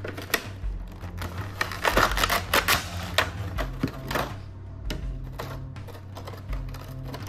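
Clear plastic blister tray crinkling and crackling as it is handled and slid out of its box: dense crackling for the first four seconds or so, then only scattered clicks. Background music plays underneath.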